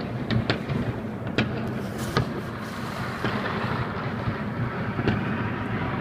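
Chinese New Year fireworks and firecrackers going off in the distance: a continuous rumble of many blasts, with a handful of sharper separate bangs standing out from it.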